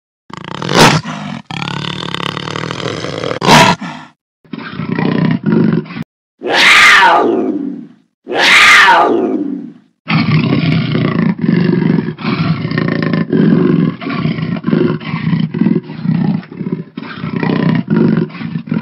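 Jaguar calls spliced together: a few short snarls and growls, then two long roars that fall steeply in pitch around the middle, followed by a long run of rapid, rhythmic grunts in the manner of a jaguar's sawing call.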